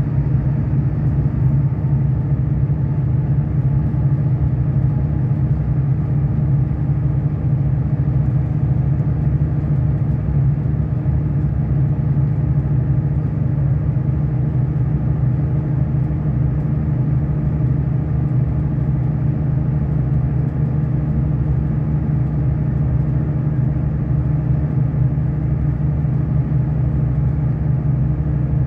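Steady low drone of a V/Line diesel train's engines, heard from inside the passenger carriage as the train comes into the station platform.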